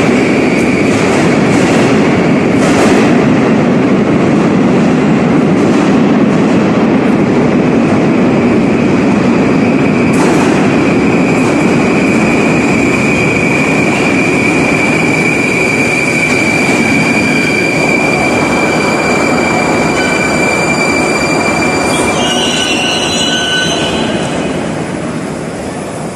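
Metro train arriving at an underground station: wheels running on the rails with a few clacks at the rail joints and a steady high-pitched squeal, the noise easing off near the end as the train comes to a stop.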